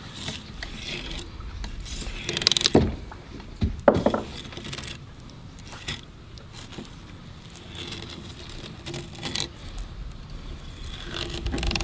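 Fillet knife cutting along a flounder's rib bones against a cleaning board: irregular scraping and crunching, with a couple of sharp knocks about two and a half and four seconds in.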